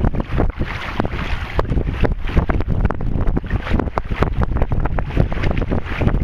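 Wind buffeting the microphone in irregular gusty thumps, over the wash of water along a sailing canoe's hull while under way.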